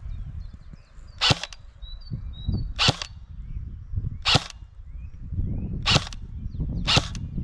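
Specna Arms M4 CQB Keymode airsoft electric gun (AEG) firing five single shots, each a sharp crack, roughly a second to a second and a half apart.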